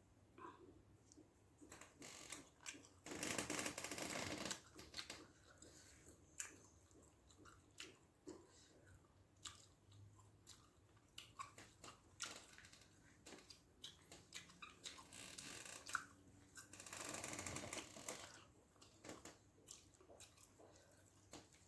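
Faint eating sounds: a man chewing and smacking on rice with mackerel fish gravy, many small wet clicks, with two longer rushes of noise lasting over a second each, one a few seconds in and one near the end.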